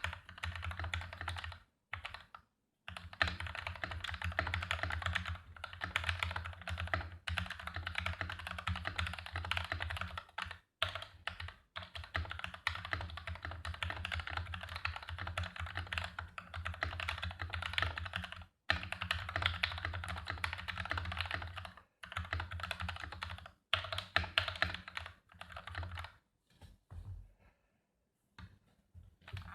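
Typing on a mechanical keyboard: a Jargo OM-09 TKL hotswap board with a plastic case and metal plate, fitted with thin-lubed Gateron Milky Yellow linear switches and PBT cherry-profile keycaps. The keystrokes come in a fast, steady clatter with a few brief pauses and thin out to scattered presses near the end.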